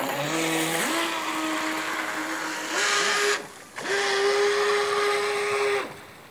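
Radio-controlled electric speedboat on a 6S lithium battery running at speed: its motor whine climbs in pitch at the start, holds steady, cuts out briefly about three and a half seconds in, then comes back and holds until it stops near the end, over the hiss of the hull and spray on the water.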